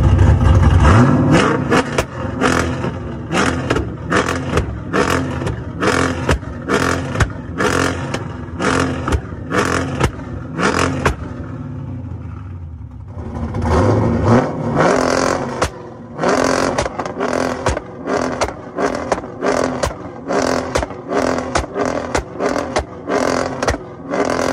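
Cammed LS V8 with a loud exhaust is revved and let off, followed by a rapid string of exhaust pops and crackles, roughly two a second. About halfway through there is a short lull, then another rev and the crackling starts again.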